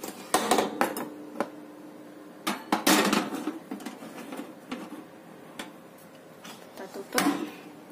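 A metal loaf pan being slid onto the wire rack of a small electric toaster oven, with knocks and a metallic scrape, loudest about three seconds in. A clunk near the end as the oven's glass door is shut.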